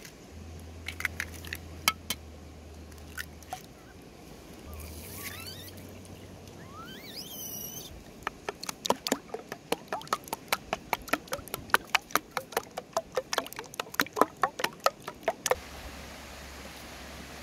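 A wooden ladle beats raw chicken eggs in a bowl, knocking against it in a fast, even run of clicks, about four a second, from about eight seconds in. Before that come a few scattered sharp clicks as eggs are cracked.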